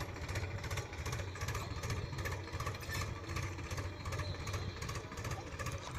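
Powertrac 439 Plus tractor's 41 hp diesel engine running steadily with an even, rapid beat, pulling a two-row potato planter in high-range first gear.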